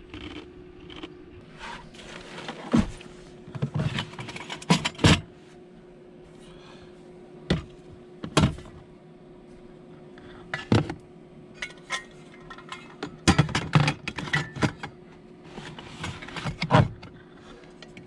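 Scattered knocks, clicks and rustles from handling gear and moving about inside a truck-bed camper shell, coming irregularly and in small clusters, over a steady hum.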